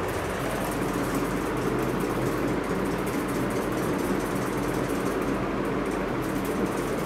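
Steady mechanical hum of a running motor, unchanging throughout.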